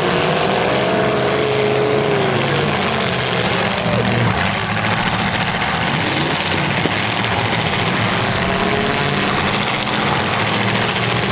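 Demolition derby car engines running and revving together in a loud, steady din; one engine's pitch swells and falls in the first couple of seconds.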